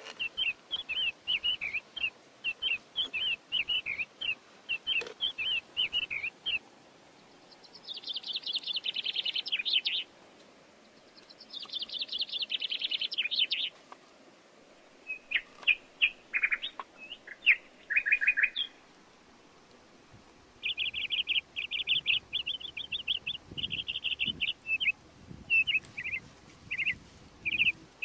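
Small birds calling: runs of quick high chirps, broken near the middle by two rapid trills of about two seconds each.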